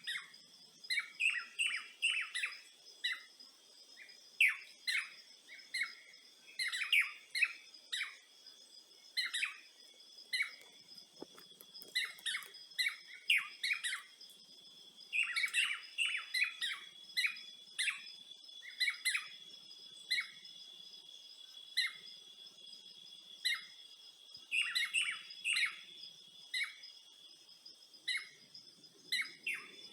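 Birds chirping in repeated clusters of short, quick calls, over a steady high-pitched insect drone.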